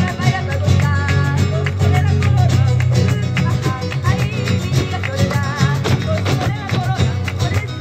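Live flamenco music: acoustic guitar with a singer's wavering voice, over a dense run of sharp percussive hits and claps.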